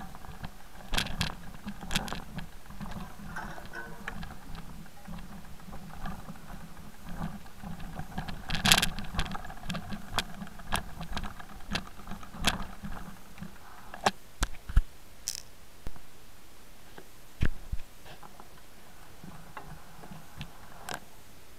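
Mountain bike riding over loose rocky ground: tyres crunching on stones and the bike rattling, with sharp knocks over bumps. The steady rolling noise stops after about 14 seconds, leaving a few loud knocks.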